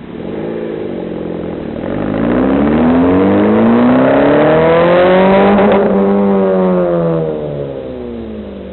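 Toyota iQ 1.3's four-cylinder engine, fitted with an aftermarket cat-back exhaust, revved from idle. The pitch rises over a few seconds, holds near the top, then falls back toward idle near the end.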